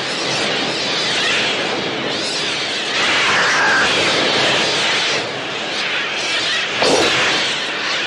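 A flock of attacking seagulls shrieking, many cries overlapping into one dense, continuous screech, with a sharp knock about seven seconds in.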